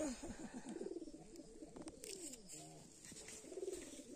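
Pigeons cooing faintly, in repeated low calls.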